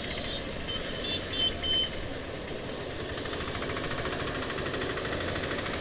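KTM 390 Adventure's single-cylinder engine running as the bike is ridden along a road, with wind and road noise. A few brief high-pitched beeps come about a second in.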